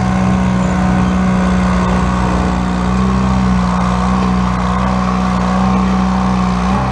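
Garden tractor engine running hard at a steady pitch while dragging a weight-transfer sled in a tractor pull.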